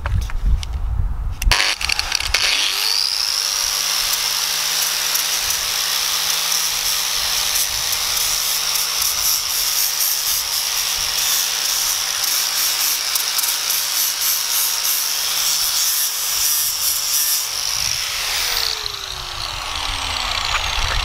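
Makita angle grinder with an abrasive disc spinning up about two seconds in and grinding rust off the vice's slide bar, a steady high whine over the scraping of disc on metal. Near the end the motor winds down, its pitch falling.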